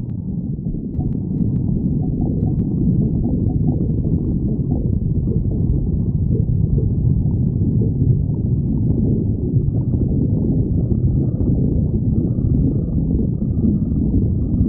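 A person's stomach growling with a continuous low rumble.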